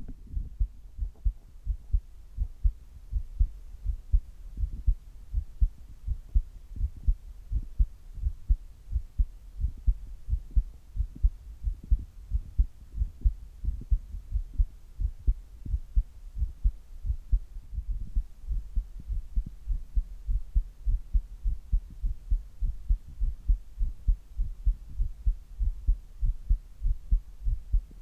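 A man's heartbeat at rest, recorded close up: a steady, even rhythm of low thumps.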